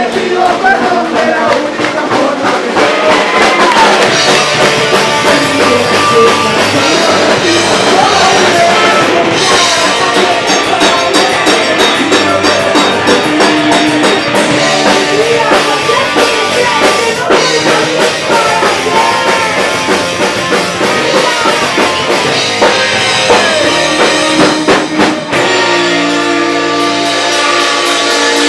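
Live punk rock band playing loud: singing over a drum kit and electric guitars.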